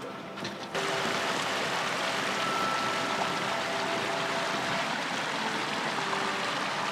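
A steady rushing noise, like running water, that starts abruptly about a second in, with faint music underneath.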